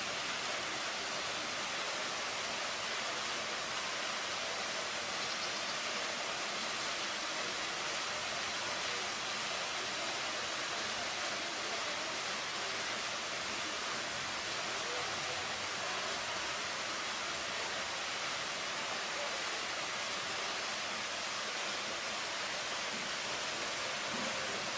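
Fountain jets splashing into their basin: a steady, even hiss of falling water.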